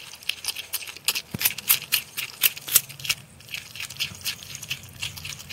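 Porcupine gnawing and chewing a piece of sweet potato: an irregular run of crisp crunching clicks, several a second.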